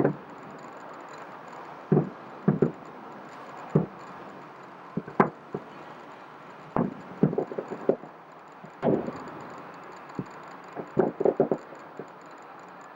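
Aerial fireworks bursting: irregular sharp bangs and booms every second or so, with quick runs of several pops about seven seconds in and again near the end.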